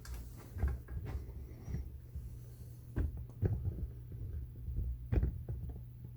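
Handling and movement noise as a handheld camera is carried around: irregular dull thumps, the strongest about 3 and 5 seconds in, over a steady low hum.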